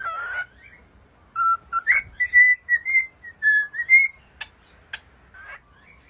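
Whiteface cockatiel whistling a short tune of clear notes that step up and down, after a brief rough call at the start. Two sharp clicks and a short call follow near the end.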